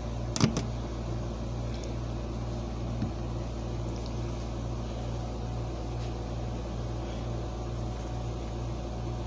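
Steady low hum with a faint hiss of background room machinery, with a single sharp knock about half a second in.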